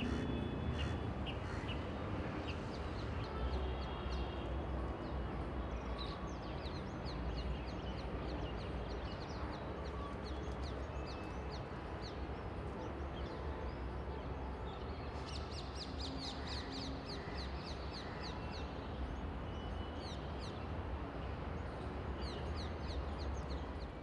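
Several birds chirping in short, high calls, thickest about two-thirds of the way through, over a steady low rumble of outdoor background noise.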